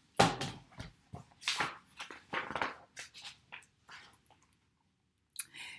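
Pages of a picture book being handled and turned: a run of short paper rustles and flaps, with one more brief rustle near the end.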